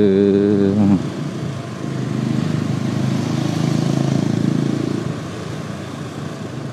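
Motorcycle riding through slow traffic: engine rumble mixed with wind and road noise, swelling between about two and five seconds in, then easing. A wavering, hummed drone cuts off about a second in.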